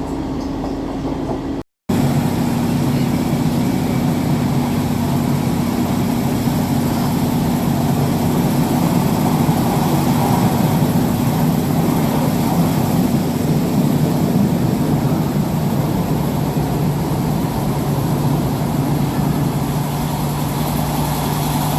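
A vehicle's engine running with a steady low drone over constant rumbling noise. The sound cuts out for a moment just under two seconds in, then carries on unchanged.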